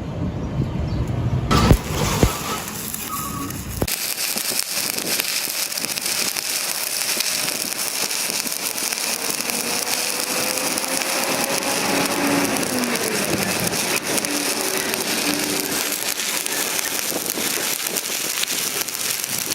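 Electric arc welding on a pipe: a couple of sharp clicks, then from about four seconds in a steady, dense crackle of the welding arc as a bead is run.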